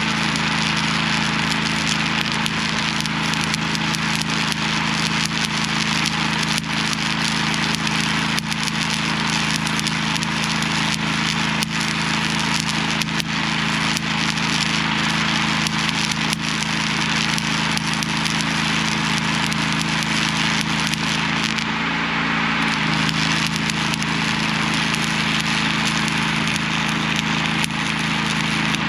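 Arc welding on heavy steel: a steady, dense crackle and sizzle from the arc, over the constant low hum of an engine running. The hum changes pitch briefly about two-thirds of the way through.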